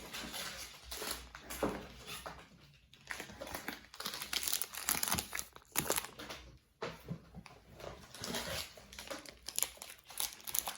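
Soap packaging being handled and unwrapped: irregular crinkling and rustling of wrapping, with sharp crackles.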